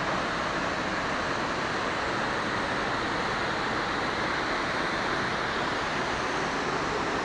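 Steady rushing of a tall waterfall, an even hiss that neither rises nor falls.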